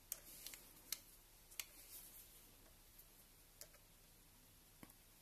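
Needle-nose pliers clicking against a small crimp wire terminal as the wire is worked into place: a handful of faint, irregular light clicks in near quiet.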